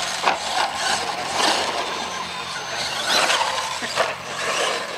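A 1/10-scale electric RC monster truck revving. Its motor and gears whine up and down in surges while its tyres scrabble on loose dirt, with two sharp knocks as it lands and tumbles.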